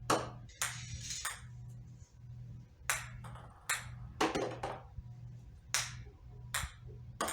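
Ping pong balls bouncing off the floor and into baskets: about nine sharp, separate taps, unevenly spaced, some ringing briefly. A steady low hum runs underneath.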